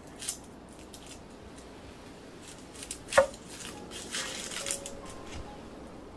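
Dry papery skin of a red onion crackling and tearing as it is peeled away with a kitchen knife. There is a sharp knock on the wooden cutting board about three seconds in, and a denser run of crackling a second later.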